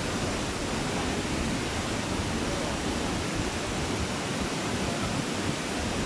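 Tall waterfall plunging into a rock pool: a steady, even rush of falling water.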